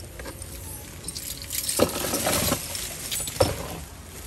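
Recyclables clattering into a recycling bin: a few knocks and clinks, with a rattling clatter about two seconds in.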